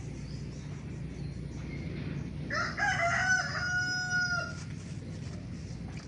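A rooster crows once, a single call of about two seconds starting a little past halfway, over steady low background noise.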